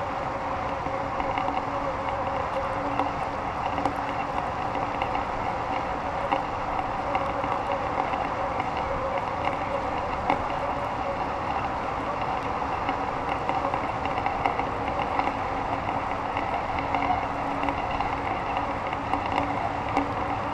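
Steady wind noise on a GoPro camera hanging high in the air under a bunch of helium balloons, with a faint steady hum running under it.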